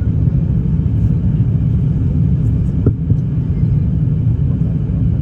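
Steady low rumble of an Airbus A350 airliner, even throughout, with a single short click about three seconds in.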